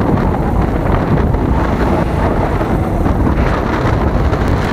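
Steady wind rumble on the microphone of a moving electric bicycle.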